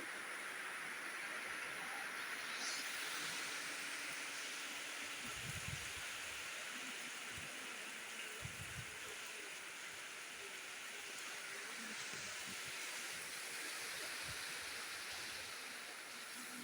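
Heavy rain falling steadily as a continuous hiss. Two brief low rumbles of wind buffet the microphone, about a third of the way in and again about halfway.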